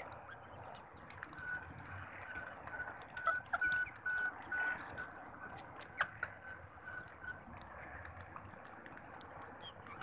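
Pigeons pecking grain off a hard rooftop, beaks tapping the ground in scattered sharp clicks, busiest around the middle. Behind them a short high beep repeats evenly about twice a second for several seconds.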